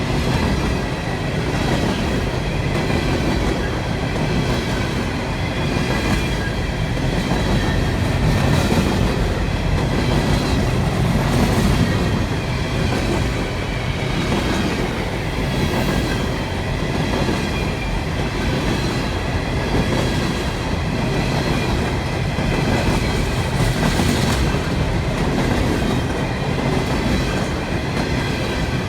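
Long string of freight hopper cars rolling past at speed: a steady rumble of steel wheels on rail, with clicking over rail joints and a thin, high wheel squeal running under it.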